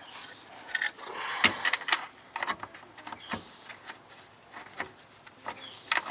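Irregular metal clicks, taps and light scrapes from a bolt and nut being fitted by hand into a VW Mk2 front control arm mount on the subframe, with a sharper knock about a second and a half in.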